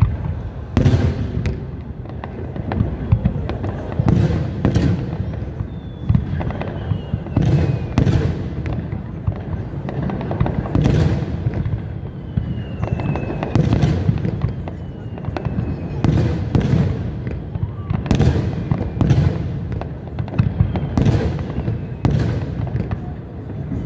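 Aerial fireworks display: shells bursting in a steady run of bangs, roughly one every one to two seconds, over a continuous low rumble. A couple of falling whistles cut through between the bursts.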